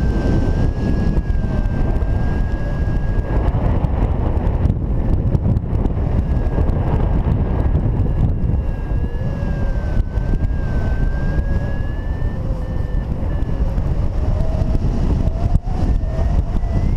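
Wind rushing over the camera's microphone in paraglider flight, a loud steady buffeting, with a faint wavering whistle running over it.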